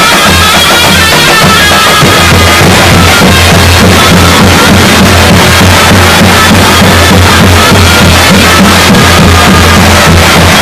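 Davul and zurna playing together: a shrill, reedy zurna melody over the steady beat of the big double-headed davul drum, very loud.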